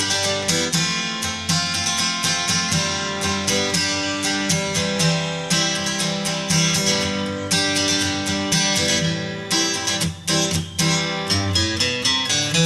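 Background music led by quick, steady strumming on a guitar.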